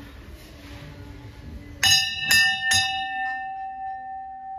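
Temple bell struck three times about half a second apart, starting about two seconds in, its ringing tone then fading slowly.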